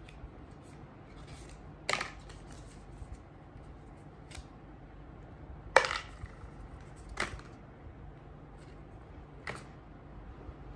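Handling noises from unboxing a phone and its accessories: a few scattered clicks and light taps against a quiet background, the sharpest about six seconds in.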